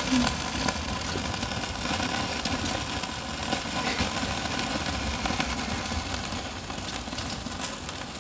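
Fat fire on a charcoal kettle grill: beef fat rendering onto the hot coals and burning in a flare-up. The flames give a steady rushing with a low rumble and many small crackles and sizzling pops, easing slightly near the end.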